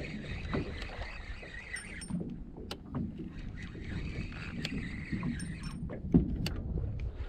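Water lapping against a small boat's hull and wind buffeting the microphone, with scattered clicks and knocks from fishing gear while a fish is played on a bent rod. The sharpest knock comes about six seconds in.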